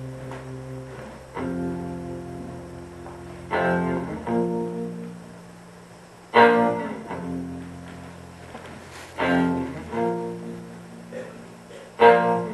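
Live band music heard from within the audience: a slow instrumental passage of sustained string notes, with a heavy chord struck every two to three seconds.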